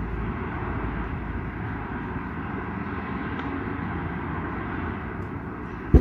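Steady outdoor background rumble, with one sharp knock near the end.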